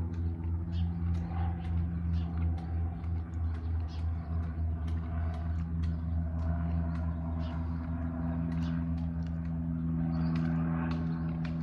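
Someone chewing black pepper beef jerky, with many small mouth clicks, over a steady low hum.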